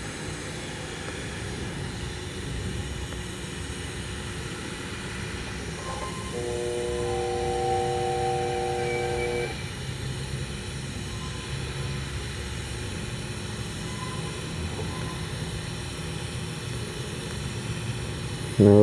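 TIG welding arc running steadily on a pipe cap pass: a low, steady buzz and hiss. About six seconds in, a steady chord of several tones sounds for about three seconds and then stops.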